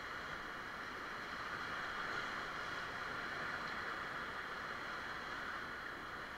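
Whitewater rapids rushing steadily around a raft, an even roar of river water.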